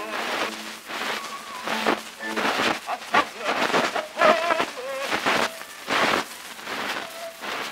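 Playback of a 1911 Edison Amberol wax cylinder: a tenor singing in French with orchestra accompaniment, the voice wavering with vibrato. It comes through heavy surface noise that rises and falls in uneven surges.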